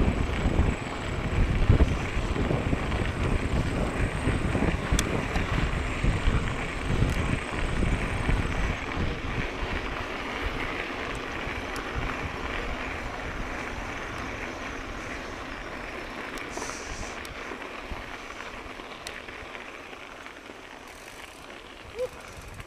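Wind buffeting the microphone and mountain bike tyres rolling along the trail while riding, loudest in the first part and fading steadily as the bike slows. A brief squeak near the end.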